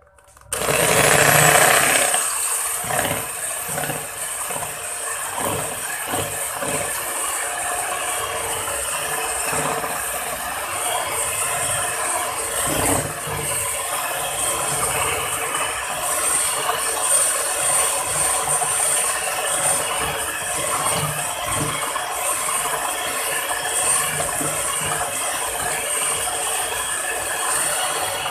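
Electric hand mixer switching on about half a second in and then running steadily, its twin beaters whipping a partly frozen ice-cream base in a plastic bowl. It is loudest in the first couple of seconds.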